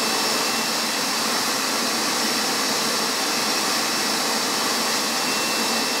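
Hoover MAXExtract Dual V carpet extractor's suction motor running steadily with a high whine, its hose hand tool drawing water out of a wet spot in the carpet.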